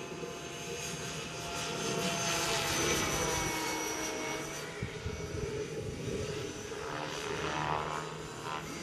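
Gaui Hurricane 425 RC helicopter flying overhead: the whine of its rotor and drive rises and falls in pitch as it passes and manoeuvres, loudest about three seconds in.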